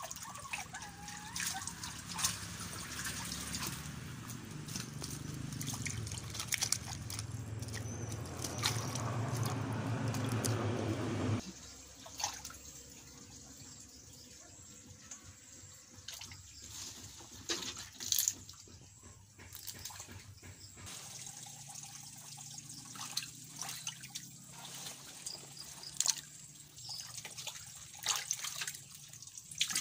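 Water running steadily and growing louder, then cutting off suddenly about eleven seconds in. After that come scattered small splashes and drips as pond water is scooped out by hand with a plastic jug.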